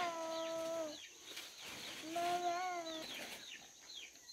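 A young bird peeping over and over in short, high chirps that slide downward. Two louder held calls of steady pitch, each about a second long, come at the start and about two seconds in.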